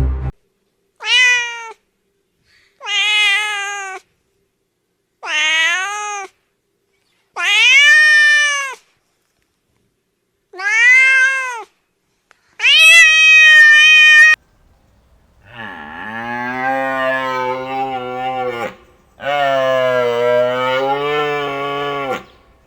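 A domestic cat meowing six times, each meow about a second long and rising then falling in pitch, the last one loudest and longest. Then two long, low moos from a cow.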